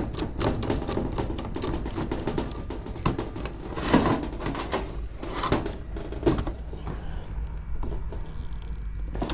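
Screwdriver work and wire handling on a sheet-metal heater-kit panel: a run of small clicks, scrapes and knocks as a terminal screw is turned down on a wire. The louder knocks come about four seconds in and again a couple of seconds later.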